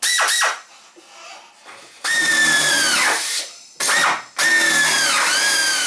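Pneumatic air drill running in a short burst, then three longer runs. Its high whine sags in pitch each time the bit bites, as it bores holes through wood.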